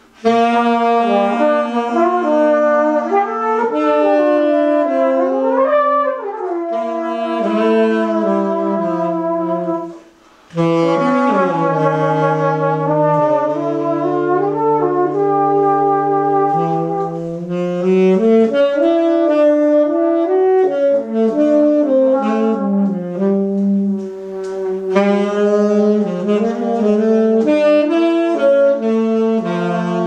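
Saxophone and trumpet playing free-jazz lines together, with sliding pitch glides a few seconds in. The horns break off briefly about ten seconds in, then come back in.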